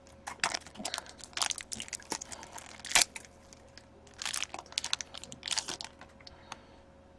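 Plastic card sleeve and one-touch card holder being handled: crinkling and rustling with scattered small clicks, and one louder sharp snap about three seconds in.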